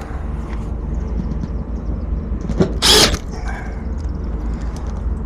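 Sheet-metal access panel of a rooftop commercial HVAC unit being handled: a click, then one short loud metallic scrape or clatter about three seconds in, over a steady low rumble.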